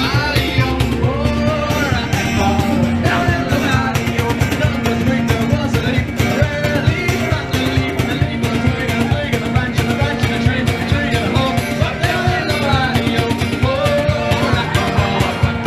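Rock music with guitar, a steady driving beat and a wavering melody line.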